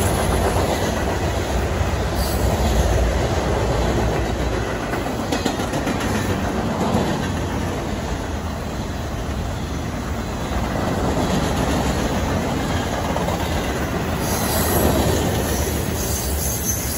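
Freight train cars, covered hoppers and boxcars, rolling past at speed: a steady, continuous noise of steel wheels running on the rails.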